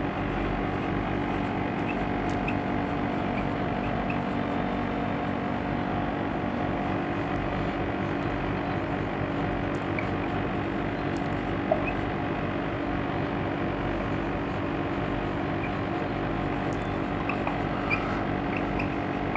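A steady background hum, like a machine or fan, with a few faint steady tones in it. There are a couple of faint clicks, about twelve and eighteen seconds in.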